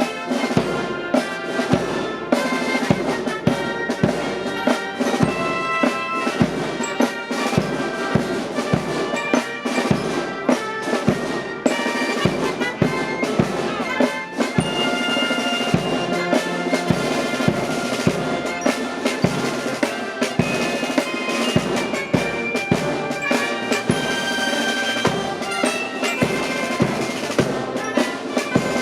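Military marching band playing a march: brass carrying the tune over a steady drum beat of about two strokes a second.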